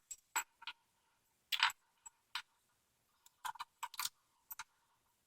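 Small metal clicks and clinks from a padlock and its key being handled, about a dozen irregular light taps with short gaps between, some in quick pairs.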